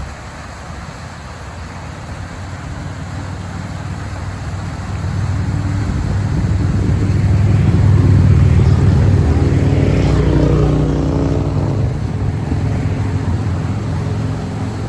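Volvo ECR145 excavator's diesel engine working under load. It builds up over several seconds, is loudest in the middle, then eases back.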